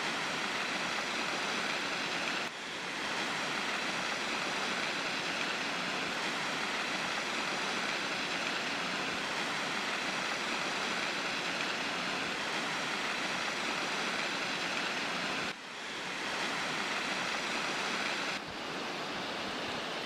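Butakovsky waterfall's falling water: a steady rushing hiss that dips briefly a few times.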